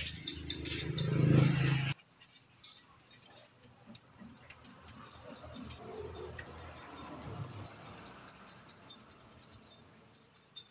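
A motor hums steadily and grows louder for about two seconds, then cuts off suddenly. After that come faint, scattered metal clicks and rattles of tools and engine parts being handled.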